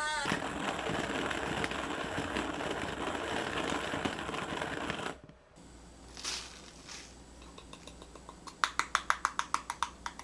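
A steady rushing noise for about five seconds that stops abruptly, then soft rustling and, near the end, a fast run of light wooden taps, about eight a second, as a small wooden box is knocked against a ceramic pour-over dripper to shake coffee grounds into the filter.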